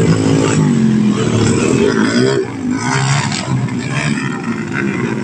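Several dirt bike engines revving as the bikes ride across grass, their pitch rising and falling as they accelerate and ease off.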